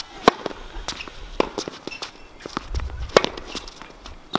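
Tennis racket strikes and ball bounces on a hard court during a rally: a series of sharp pops, the loudest two nearly three seconds apart, with fainter hits and bounces between.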